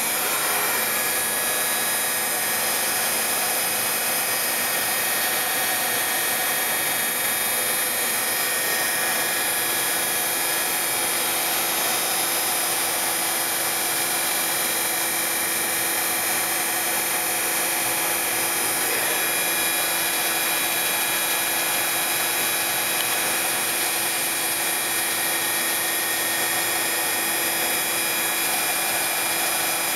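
Robotic sanding cell running: the sanding heads' motors and dust extraction make a steady, loud hiss with a few constant tones. A low hum joins about twelve seconds in, as the robot arm holds a wooden part to a spinning sanding disc.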